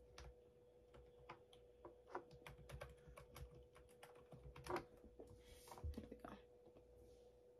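Faint, irregular keyboard tapping as a price is typed into a search, with a faint steady hum underneath.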